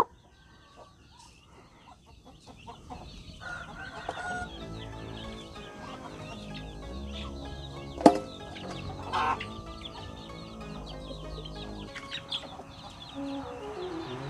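Free-range native chickens clucking and small chicks peeping around a wire pen. Soft background music comes in about three seconds in, and there is one sharp knock about eight seconds in.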